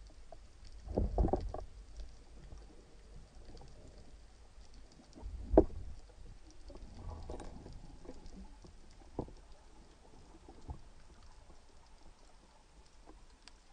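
Underwater sound picked up through a camera housing: a low rumble and faint scattered clicks, with a cluster of low knocks about a second in and one sharp knock about five and a half seconds in.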